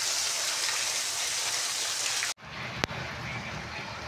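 Heavy rain pouring onto wet concrete and standing water, a steady hiss. A little over two seconds in it cuts out for an instant and comes back duller and lower, and about half a second later there is a single sharp click.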